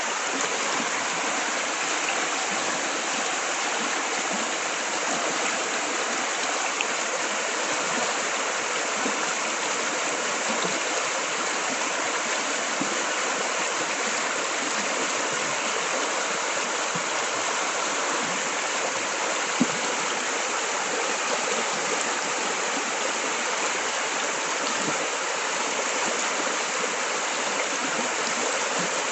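Forest river water flowing steadily over rocks, a constant rushing with a single small click a little past the middle.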